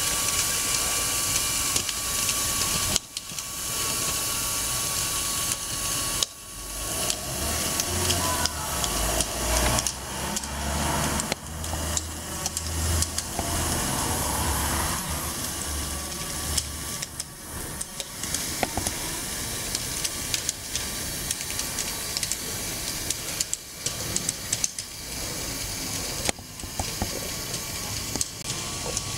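Electric gear motors driving a homemade tracked chassis, running with a steady whirring hiss while its aluminium track links click over paving stones. The drive drops out briefly a few times.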